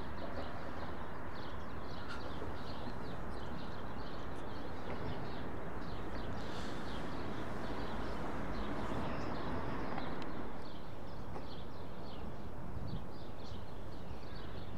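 Small birds chirping continuously in many short, quick notes over a steady low background rumble.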